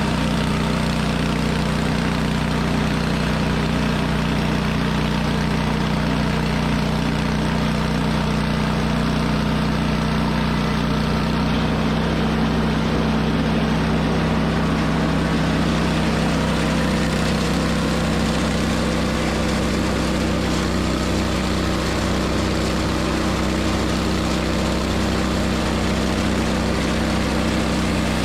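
An engine running steadily at a constant speed, with a low, even hum.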